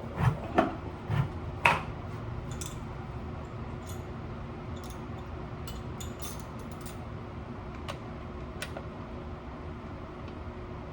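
Metal tools and parts being handled, clinking and knocking: four louder knocks in the first two seconds, then scattered light metallic ticks, over a steady low hum.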